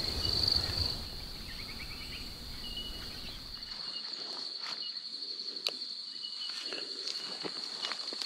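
Steady high-pitched insect trill, with scattered faint clicks and rustles and a low rumble that drops away about four seconds in.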